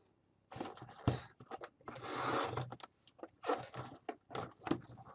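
Cardboard packaging being opened by hand: scattered taps, knocks and scrapes on the box, with a longer scrape about two seconds in as the seal gives way.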